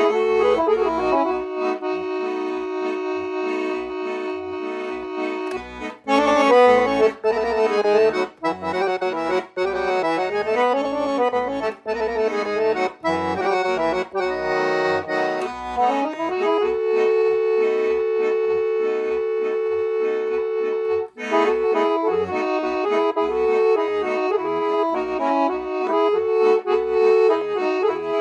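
Dallapé Supermaestro piano accordion playing a sevdah tune: a right-hand melody with long held notes over short, regular left-hand bass and chord notes.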